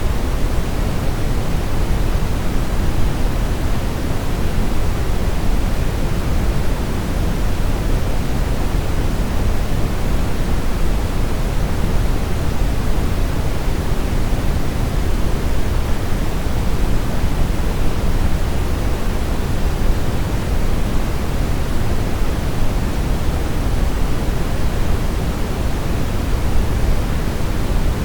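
Brown noise: a steady, unchanging noise, deep and rumbling, with most of its weight in the low end.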